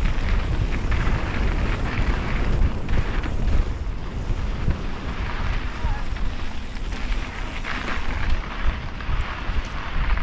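Wind noise on the microphone of a mountain bike moving down a dirt singletrack, with a steady low rumble and the hiss of knobby tyres rolling over dirt.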